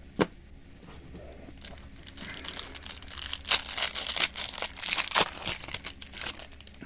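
Wrapper of a 1992 Pinnacle baseball card pack being crinkled and torn open by hand, a dense crackling with sharp snaps, from about two seconds in until near the end. A single sharp tap comes just after the start.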